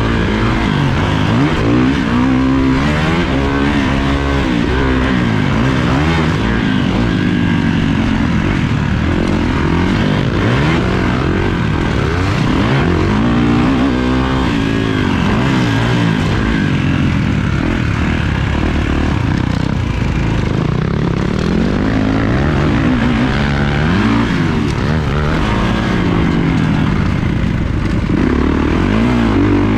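Kawasaki motocross dirt bike engine at race pace, heard from on board, revving up and falling back over and over as the rider accelerates, shifts and rolls off around the track.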